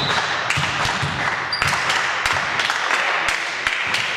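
Basketball being played in a gym: scattered ball bounces and thuds and a short high sneaker squeak about a second and a half in, over steady crowd and hall noise.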